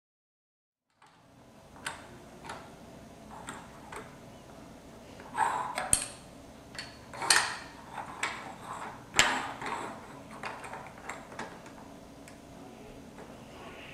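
Plastic LEGO bricks and wheels clicking and knocking as they are handled and set on a wooden table, with a few sharper clicks in the middle. The sound starts after about a second of dead silence.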